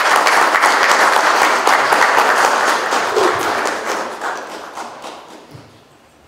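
Audience applauding, a dense patter of many hands clapping that fades away over the last two seconds.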